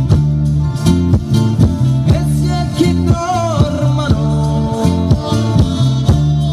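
Live folk band playing Calabrian folk music: acoustic guitars strummed in a steady rhythm over electric bass notes and percussion, with a wavering melody line in the middle.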